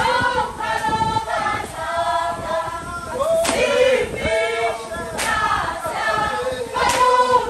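A group of voices, mostly women, singing a Zulu song together in held phrases, with a sharp beat about every second and a half to two seconds.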